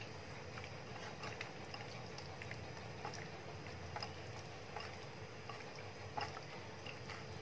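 Faint wet squelching and small scattered clicks of a hand mixing prawns coated in Schezwan chutney and gram flour in a glass bowl, over a low steady hum.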